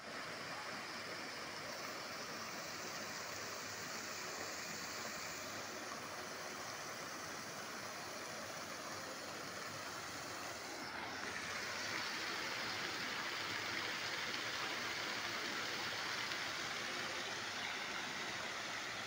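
Fountain with a ring of arching jets and a centre spray, water spraying and splashing into its basin: a steady rush of falling water that grows a little louder about halfway through.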